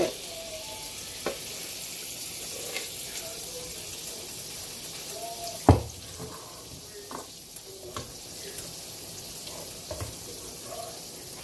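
Pancake batter frying in a pan: a steady sizzling hiss, with one sharp knock a little over halfway through and a few lighter clicks.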